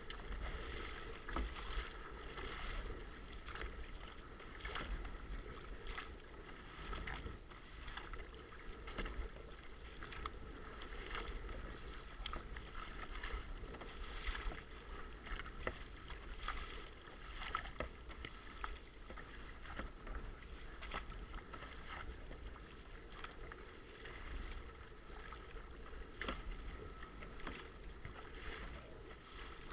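Double-bladed kayak paddle dipping into choppy sea water stroke after stroke, splashing about once a second, with water washing against the plastic hull over a steady low rumble.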